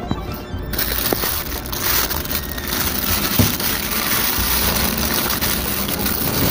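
Clear plastic packaging crinkling and rustling as hands open and handle it. The crackle starts about a second in, over background music.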